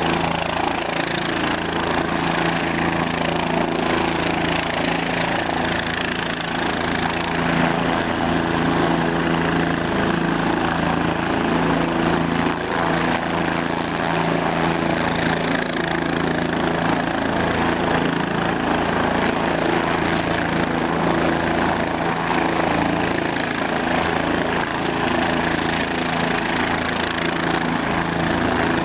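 A Bell 407GX helicopter runs on the ground with its main rotor turning. It makes a steady turbine whine over a constant rotor beat, with no change in power.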